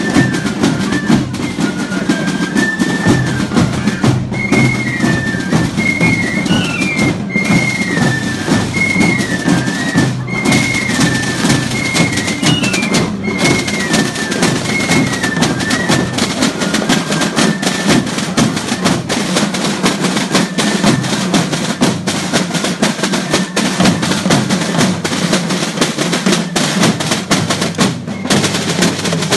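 Fife-and-drum band playing a march: a high fife melody over steady snare drumming. The fifes grow faint a little past halfway while the drums keep going.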